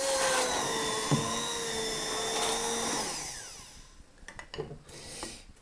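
Bamix stick blender running at high speed in a glass coffee jar, a steady motor whine. About three seconds in it is switched off and winds down, falling in pitch, followed by a few light knocks.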